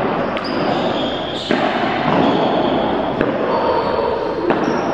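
Balls bouncing and being struck on a hard indoor court, with a few sharp knocks echoing in a large hall over a steady noisy din, and some short high squeaks.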